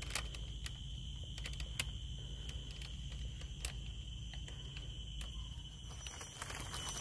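Steady high-pitched drone of insects in the garden, carrying two thin tones, with scattered sharp clicks and a low rumble from handling; it grows louder and busier near the end.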